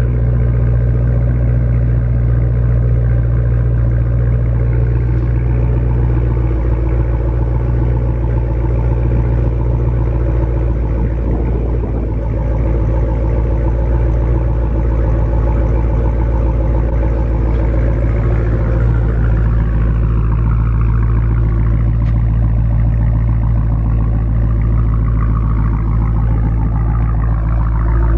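2016 Dodge Challenger Hellcat's supercharged 6.2-litre Hemi V8 idling steadily through Vibrant mufflers, a low, even exhaust note.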